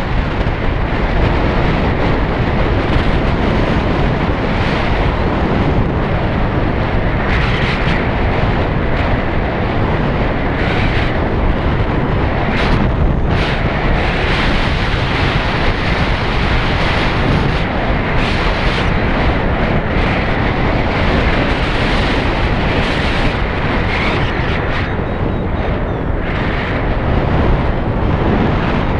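Steady, loud wind buffeting on the microphone of a moving vehicle, with road and engine noise underneath.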